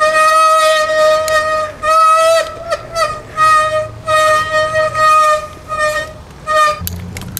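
Bicycle rim brakes squealing, a steady high-pitched honk that comes in about six long squeals with short breaks while the brake is squeezed hard. The squeak comes only under a hard squeeze. The owner puts it down to new pads not yet bedded into the smooth, polish-cleaned rims on a humid day.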